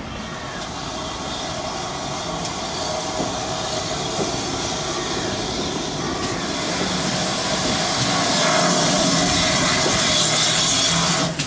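Steam locomotive passing beneath a road bridge: a steady rushing noise that grows louder about two-thirds of the way through and cuts off suddenly near the end.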